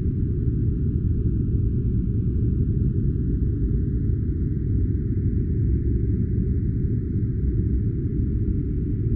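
Steady deep noise with no rhythm or events, everything above the low range cut off sharply: a low-filtered white-noise track for sleep or studying.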